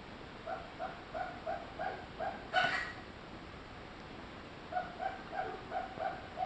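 A pet rabbit sneezing once, loudly, between two runs of short, evenly repeated squeaks about three a second.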